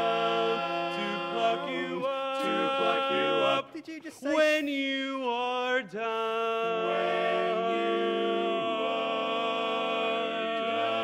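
Male barbershop quartet singing a cappella in close four-part harmony, holding chords. About four seconds in a single voice sings a wavering, gliding line alone, then all four return with held chords and the bass drops to a lower note.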